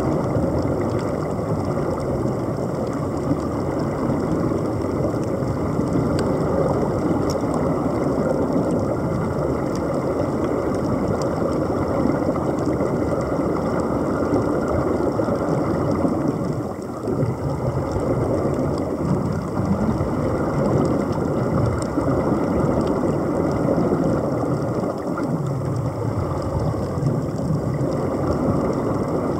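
Steady underwater rushing and bubbling from air venting out of the open-bottomed diving helmets, with a brief dip about halfway through.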